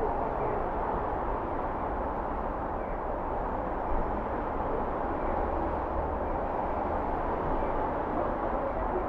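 Steady city traffic noise, an even hum and rumble with a brief soft knock about four seconds in.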